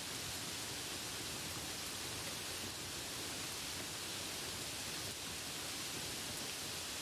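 Steady, even hiss of noise with no distinct events or changes.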